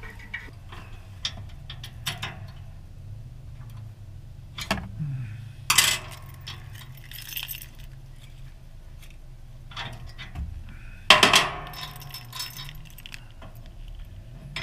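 Metal hitch hardware clinking and clanking as a locking hitch pin is handled and fitted into a trailer-hitch receiver, with sharp ringing clanks about 5, 6 and 11 seconds in.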